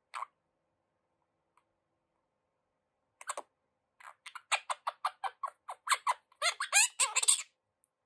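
Quaker parrot (monk parakeet) chattering: one short chirp at the start, then from about three seconds in a quick run of short squeaky chirps and clicks, several a second, growing denser and louder toward the end.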